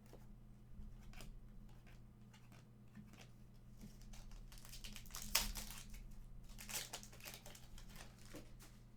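Trading cards being handled and flipped through, with soft rustles and crinkles; the loudest crinkles come about five seconds and seven seconds in, over a faint steady hum.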